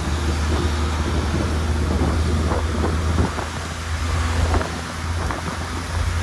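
Chevrolet Opala with its roof cut off, cruising steadily on a wet highway: a low engine drone under wind, rain and road noise in the open cabin.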